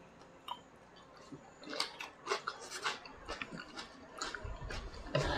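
Quiet table eating sounds: chewing and chopsticks tapping against ceramic bowls, a scattered string of short irregular clicks and soft noises with a few dull low knocks, starting after a nearly quiet second and a half.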